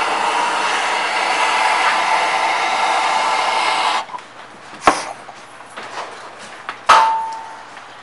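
Gas torch flame hissing steadily as it heats a copper seam for soft soldering, cut off suddenly about four seconds in. Then two knocks as the copper piece is handled, the second a ringing metal clank.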